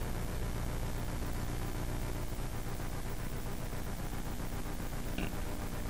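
Steady low hum with an even hiss and no speech: room tone.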